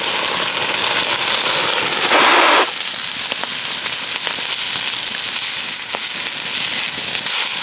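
Meat frying in a hot pan: a steady, dense sizzle full of small spits and crackles, swelling louder for about half a second around two seconds in.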